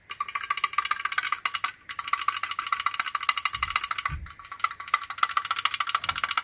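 Mechanical keyboard with AKKO Matcha Green switches being typed on rapidly: a fast, continuous clatter of key clicks, many a second, broken by two short pauses.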